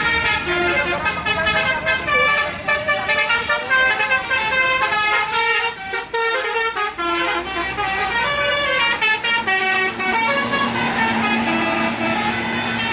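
Tour bus telolet horn playing a rapid tune of short, stepped horn notes. About ten seconds in, the tune gives way to a steady low hum with noise.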